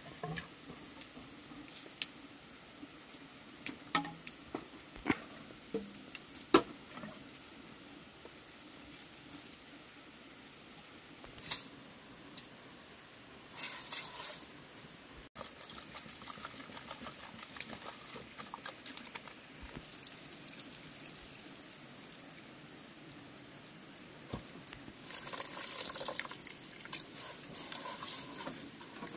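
A few sharp knocks of bamboo tubes being handled and set down, then hands rubbing and stirring raw rice grains in a metal cooking pot in two bursts of grainy rustling, the longer one near the end.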